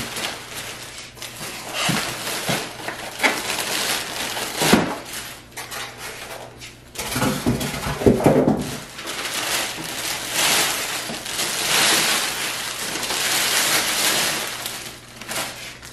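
Printer packaging being unwrapped: a plastic bag rustling and crinkling, heaviest in the second half, with a few dull knocks and scrapes from polystyrene foam packing pieces being pulled off and set down.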